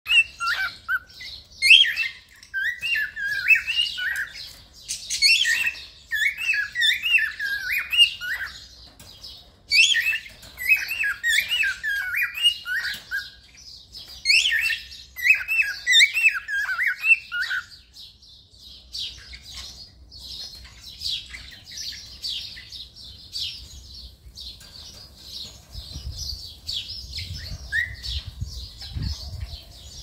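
Cockatiel singing: quick runs of whistled chirps and warbling notes in three bouts of a few seconds each, then softer, higher chattering for the second half.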